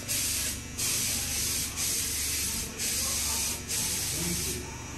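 Hissing spray in five back-to-back bursts of about a second each, with only brief breaks between them.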